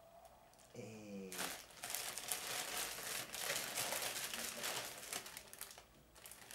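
Plastic packaging crinkling and rustling in the hands as a garment in a plastic bag is pulled from a mailer, dense and irregular for several seconds after a short voiced sound about a second in.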